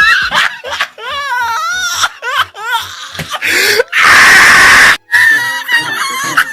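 People laughing and shrieking, with a loud, harsh scream about a second long past the middle, over music with a steady thumping beat.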